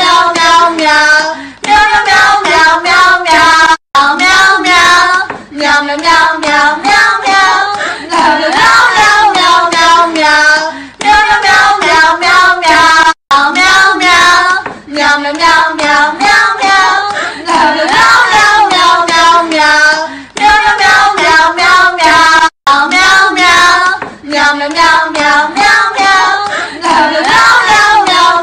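A high, childlike voice singing a bouncy song of repeated 'meow' syllables over a light clapping beat. The same short passage loops, with a brief cut-out about every nine seconds.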